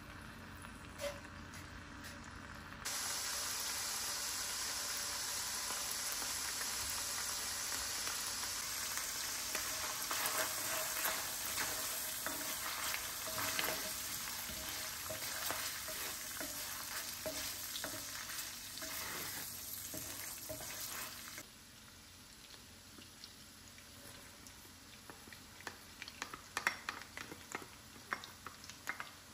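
Minced meat frying in oil in an enamelled pan, stirred and broken up with a wooden spoon: a steady sizzle full of small crackles. It turns loud about three seconds in and drops to a quieter sizzle about two-thirds of the way through, with a few sharp clicks near the end.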